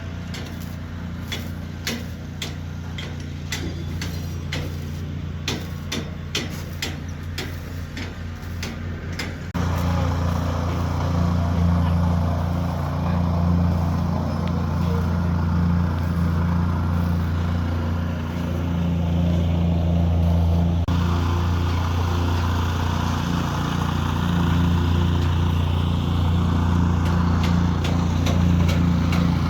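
An engine running steadily with a low hum. For the first nine seconds or so, quick sharp taps or clicks sound over it, a few a second. Then the engine suddenly gets louder.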